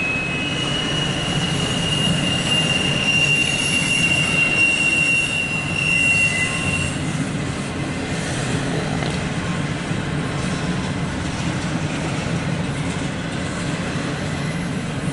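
Cars of a CSX intermodal freight train rolling past, heard from inside a car: a steady rumble of wheels on rail, with a thin high wheel squeal that dies away about seven seconds in.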